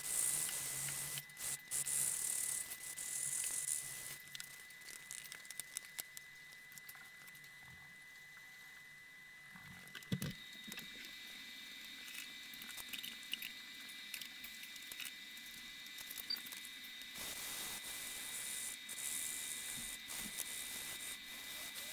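Wet-and-dry abrasive paper rubbed over the rusty steel plate of a Sandvik 275 hand saw, heard as uneven strokes of scratchy hiss during the first four seconds and again from about seventeen seconds on. In between it is quieter, with a single thump about ten seconds in.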